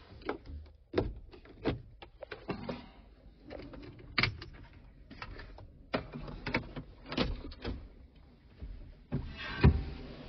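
Irregular clicks and knocks from handling inside a tractor cab, with no engine running, and a louder thump near the end.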